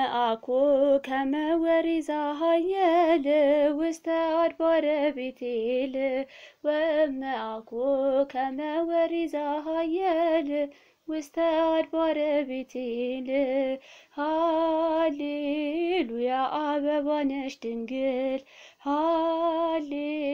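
A woman's voice singing an Ethiopian Orthodox mezmur (hymn) solo, in long ornamented phrases with a wavering, trembling pitch, broken by short pauses, with no accompaniment heard.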